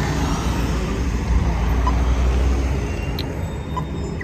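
Road traffic with a heavy engine's low rumble. It swells about a second in and eases toward the end, the kind of noise a vehicle makes as it passes close by.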